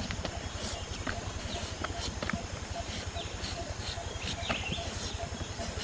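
A knife blade chopping into a firm peeled green papaya, a crisp tap roughly every half second at an uneven pace, as the fruit is hacked and shaved into thin shreds for papaya salad.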